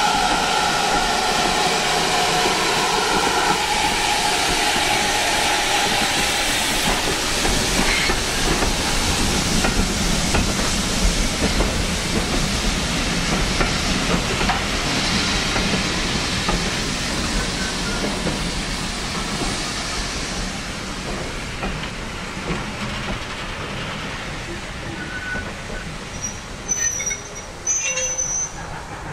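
GWR 56xx 0-6-2T steam tank locomotive No 5619 pulling out with its train, then the coaches rolling past over the rails. The noise slowly fades as the train goes by. A steady tone is held for the first few seconds, and a few brief wheel squeals come near the end.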